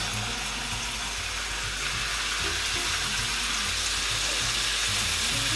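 Beef short ribs sizzling in hot oil in a non-stick frying pan as they sear, a steady hiss that grows slowly louder.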